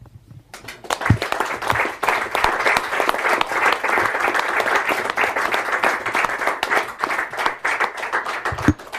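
Audience applauding, many hands clapping together, starting about half a second in and dying away near the end.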